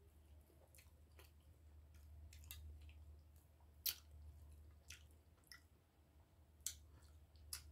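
Faint close-up eating sounds: quiet chewing with scattered small wet clicks and crackles. A few sharper ones come about four seconds in and twice near the end, as crisp bacon is torn by hand. A low steady hum lies underneath.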